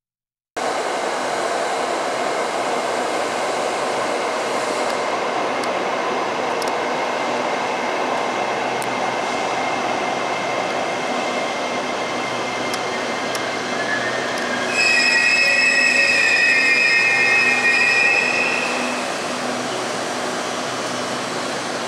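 SRT Dark Red Line electric commuter train (Hitachi AT100) running into the platform with a steady rolling noise, then a loud, high-pitched brake squeal for about four seconds from around fifteen seconds in as it comes to a stop. Afterwards a quieter steady hum as it stands at the platform.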